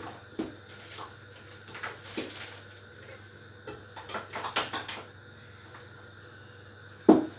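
Glass bottles and jars clinking and knocking as a kitchen drawer is rummaged through, in scattered light clicks with a louder thud near the end.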